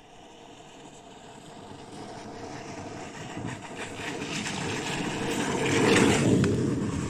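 Longboard wheels rolling on asphalt, a rumble that grows steadily louder as the board comes closer, loudest as it passes close by about six seconds in, then fading.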